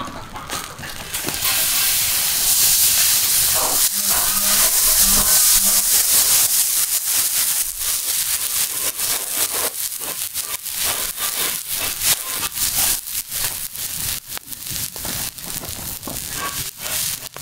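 Wheat grains roasting on a hot iron saj griddle: a loud sizzling hiss surges up about a second in and eases off after several seconds. Then a steady crackling rasp runs on as the grains are swept and stirred across the hot iron with a cloth.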